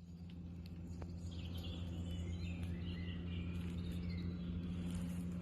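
Woodland birds singing, a run of chirping warbles in the middle, over a steady low drone.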